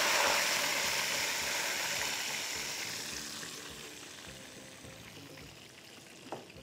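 Water poured into a hot wok of oil with frying cumin seeds and whole spices, hissing and sizzling loudly at first and dying away over several seconds as the oil cools.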